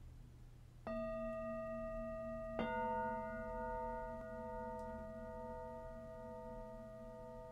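Two bell-like metallic strikes, the first about a second in and the second under two seconds later. Each rings on with several steady overtones that slowly fade.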